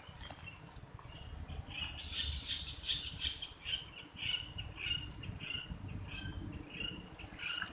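A bird calling repeatedly outdoors: a series of short, high-pitched notes, about two a second, starting about two seconds in. Intermittent scratchy noise and a low rumble sit underneath.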